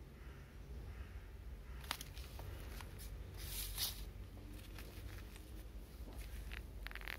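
Light handling sounds: a few small clicks and taps as multimeter test probes and a small resistor test board are picked up and set down on a table, with a brief rustle about halfway through.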